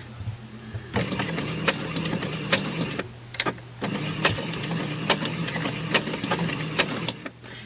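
Electric sewing machine stitching through paper. It runs for about two seconds, stops briefly, then runs again for about three seconds: a backstitch, sewing forward a few stitches and then reversing.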